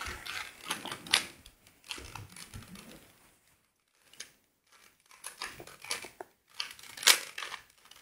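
3x3 Rubik's Cube being turned rapidly by hand: bursts of plastic clicking and clattering as the layers are twisted, with a short pause about halfway through.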